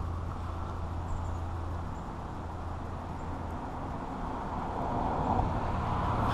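Steady road traffic noise: a low rumble that builds slightly toward the end.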